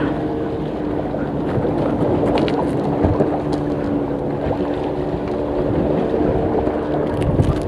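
Steady drone of a small boat's engine, over waves and wind buffeting the microphone.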